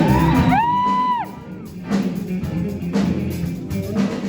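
Junior high jazz band playing live: a solo line scoops up into a held high note, the band drops out briefly just after, then drums and the ensemble come back in.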